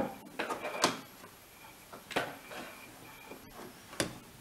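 Hands working a flexible hose into a plastic pump housing: a few sharp plastic clicks and knocks, about a second in, at about two seconds and near the end, with light scraping and rustling between.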